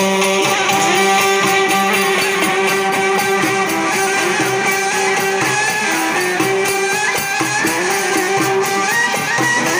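Live Egyptian folk music: a violin and a wooden flute play a sustained, stepping melody together over the steady beat of a frame drum.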